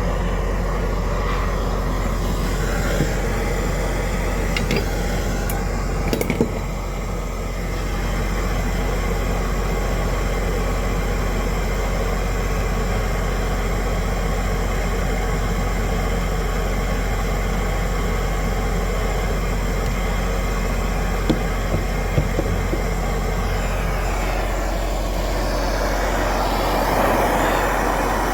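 Large engine running steadily at a constant speed, with a few light knocks about six seconds in and a few more a little past twenty seconds.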